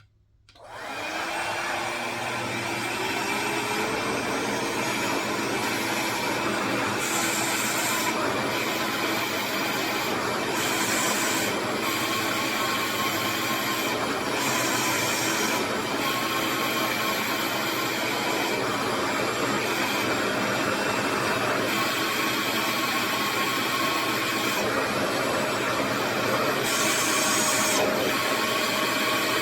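RevAir reverse-air hair dryer switched on, its motor spinning up within the first second and then running steadily with a vacuum-like suction and a high whine. It is being turned up through its speed settings with the heat on, getting slightly louder near the end.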